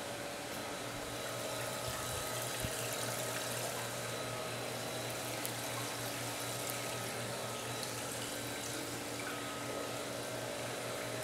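Large aquarium's water circulation running steadily, water moving continuously over a steady low hum.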